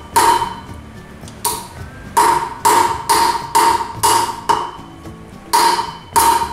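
Hammer blows on a metal drift set against the wheel bearing in a motorcycle wheel hub, driving the bearing. About ten sharp, ringing metallic strikes, spaced unevenly, with a quick run of them in the middle.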